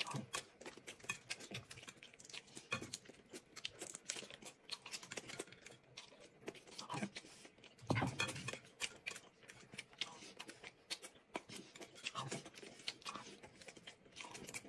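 Eating sounds as dumplings are bitten and chewed, with many quick small clicks and crackles from chopsticks and food being peeled, and a few louder short bursts, the loudest about eight seconds in.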